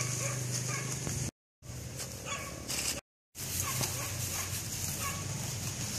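Dog whimpering in a series of short, faint whines over a steady low background hum; the sound cuts out twice, briefly.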